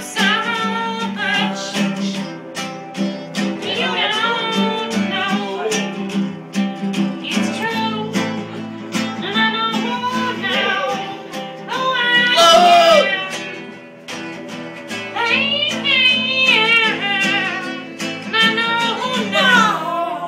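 Guitar strummed in a steady rhythm, with a voice singing a song over the chords.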